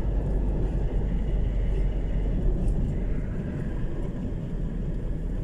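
An engine running steadily with a heavy low rumble and noise.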